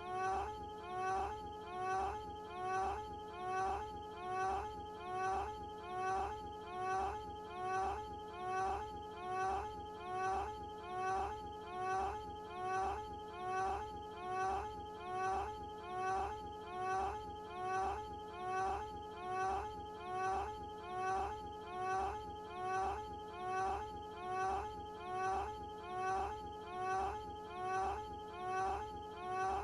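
A cartoon character's short moaning "ahh" clip looped over and over, each repeat identical and coming a little faster than once a second.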